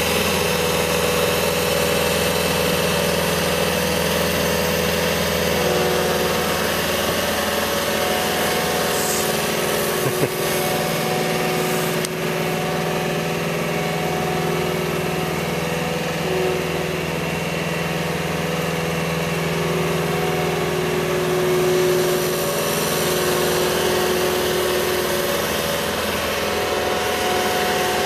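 Skid steer loader's engine running steadily, with some of its tones stepping up and down a little in pitch as the machine is worked, and a brief knock about ten seconds in.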